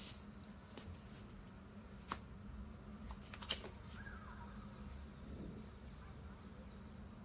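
Faint handling noise of unboxing earphones: a few light ticks and taps as paper cards and a plastic eartip tray are handled and lifted out of a cardboard box, the sharpest about three and a half seconds in, over a low steady hum.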